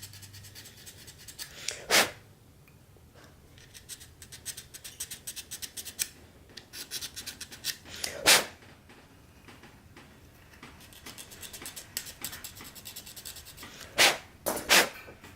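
Needle file rasping on a plastic statue peg in quick, short strokes, filing it down so it fits its base. Four louder knocks come between the runs of strokes, about 2, 8, 14 and 15 seconds in.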